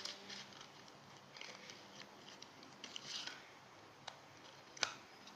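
Faint handling noises from trading cards and their packaging: scattered light clicks and rustling, with one sharper click near the end.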